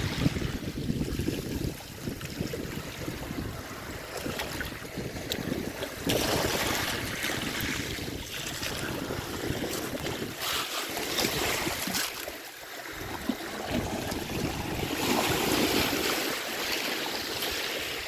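Small waves breaking and washing up over a shingle beach among rocks, the water hissing in surges as each wash runs in and drains back through the pebbles. Wind buffets the microphone, most of all near the start.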